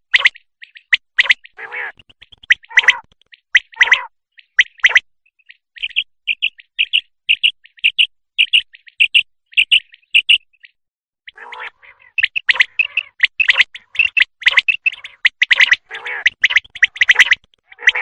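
Common quail calling: sharp, repeated call notes, some with a lower rough edge. Through the middle comes an even series of short high notes at about three a second, then a dense run of overlapping calls near the end.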